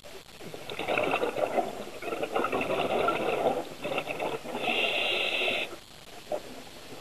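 Scuba regulator breathing heard underwater: a rush of bubbling and hissing lasting about five seconds, with a steady high whine in its last second.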